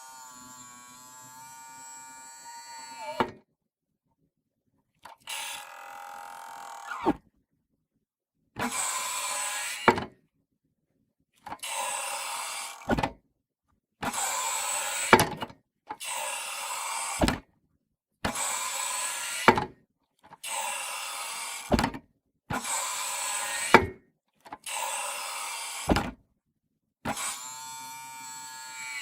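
A run of about eleven short gym-weight sound effects cut one after another with dead silence between them. Each is a second or two of scraping, rattling noise that grows louder and ends in a sharp knock.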